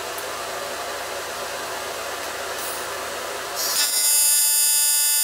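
AC TIG welding arc from a Primeweld 225 on thick aluminum, striking about three and a half seconds in after a steady hiss and then buzzing loudly with a high, steady, many-toned whine, as filler rod is added to build up the end tack.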